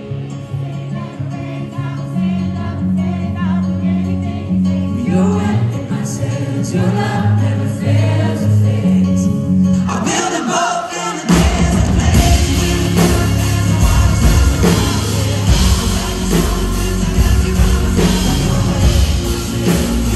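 Live band and singer performing a Christian pop song. The music starts softer, with sustained keys and bass under the singing. A little past halfway the full band comes back in, louder.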